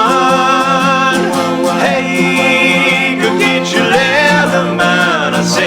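Country-bluegrass song playing, with plucked guitar and banjo under a held, sliding melody line.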